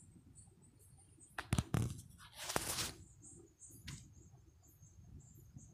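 Aluminium pressure cooker lid being fitted onto the cooker: a few metal clinks about a second and a half in, then a short scraping slide as it seats, and one more clink near the end.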